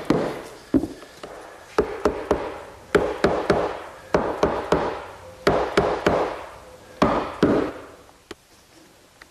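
Wooden mortise-and-tenon door-frame joints being knocked together with a mallet as they are glued up: a rapid, irregular series of sharp wooden knocks and taps that thins out near the end.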